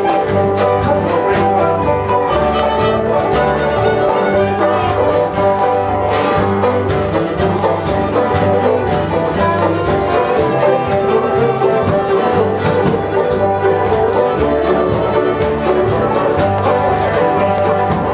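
Old-time Appalachian string band playing a lively tune: fiddle over strummed guitar and picked banjo, with an upright bass walking underneath.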